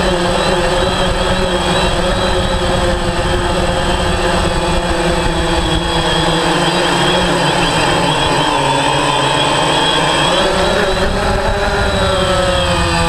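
DJI Phantom quadcopter's electric motors and propellers whining steadily, heard close up from the drone's own onboard camera, over a low rushing noise. Near the end the pitch of the whine shifts as the motors change speed.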